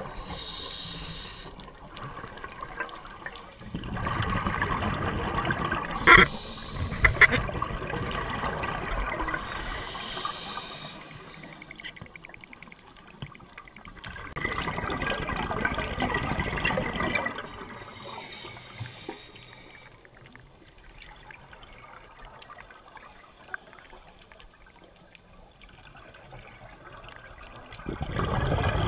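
Scuba regulator exhaust bubbles gurgling underwater, in bursts of a few seconds with quieter gaps between breaths. Two sharp knocks come about six and seven seconds in.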